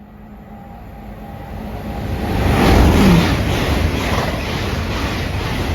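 A Great Western Railway Class 800 train passing through the station at speed. Its noise builds for about three seconds as it approaches, then holds as a loud, steady rush of wheels and air, with repeated surges as the carriages go by.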